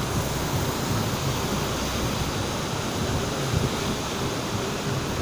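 Steady rushing noise of a heavy rainstorm and strong wind, with low, uneven buffeting.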